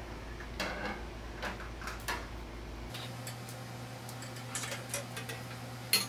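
Light scrapes and ticks of a bent coat-hanger wire being fished in over the top seal of a garage door, rubbing and tapping against the door and the opener rail, with a sharper click near the end.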